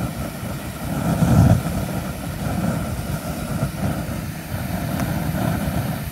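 Homemade 1/2-inch Frosty T propane burner burning with a low, uneven rushing sound, louder for a moment about a second and a half in. It is running with too much air, the flame lifting off the nozzle.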